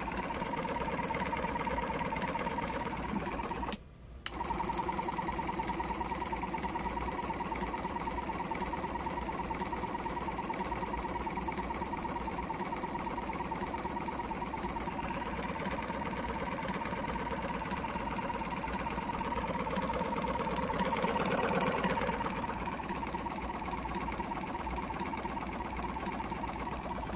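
Air compressor motor inside an old jump-starter box, running with a rapid mechanical chatter; the motor is tight after having been seized. The sound cuts out for about half a second about four seconds in, then carries on.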